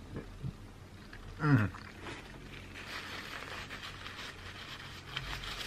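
Eating sounds: a man gnawing at a buffalo chicken wing bone with a few small mouth clicks, and a brief vocal sound with steeply falling pitch about a second and a half in. Then a paper napkin rustles as it is rubbed over his mouth and beard.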